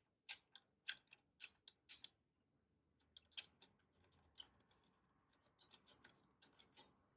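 Light, sharp metallic clicks of tweezers and small steel parts knocking together while the air rifle's spring assembly is put back together. There are about three clicks a second at first, then a few single ticks, and a quicker cluster near the end.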